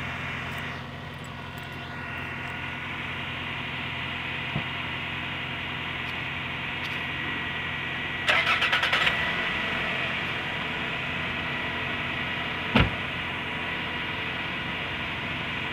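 1998 Toyota Camry cold-started: the starter cranks briefly, under a second, then the engine catches and settles into a steady idle, over the idle of a second car that is already running. The 1998's idle runs quieter than the other Camry's. A little under five seconds later a car door shuts with a single knock.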